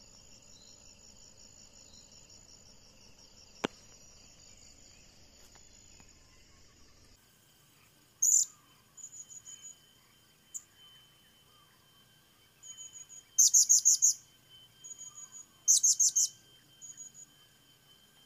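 Insects trilling in a fast pulsing rhythm, with one sharp click about four seconds in. Then blue-crowned hanging parrots give high, sharp chirps, singly and in quick series, the two loudest series near the end.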